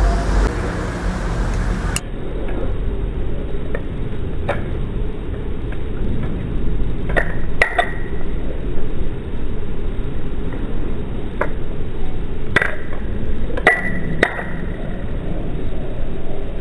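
Balisong (butterfly knife) handles and blade clicking and clinking against each other as it is rolled over in a loop, slowed down: about seven scattered metallic clicks, several ringing briefly, over a low steady background noise.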